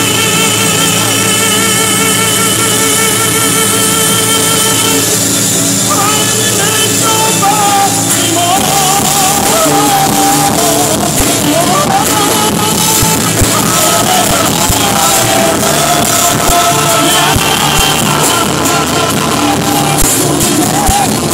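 Live church gospel music through a PA: a man singing over acoustic guitar and keyboard. A held, wavering note sounds for the first few seconds, then a moving sung melody comes in about eight seconds in.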